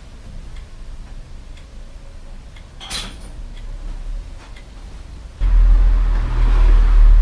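A single clack about three seconds in, then a loud rumbling rattle that starts suddenly near the end as a bicycle is wheeled right past.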